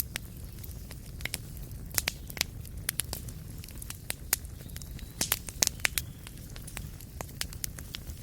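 Wood fire crackling in a fireplace: irregular sharp pops and snaps, some loud, over a steady low rumble.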